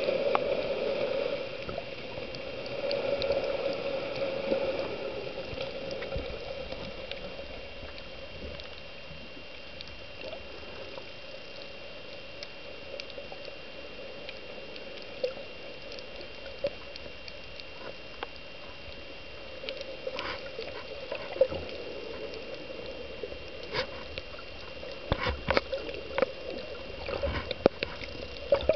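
Muffled underwater water noise picked up by a snorkeler's submerged camera, with a faint steady high tone. It swells louder in the first few seconds, and scattered sharp clicks and knocks come in the last third, thickest near the end.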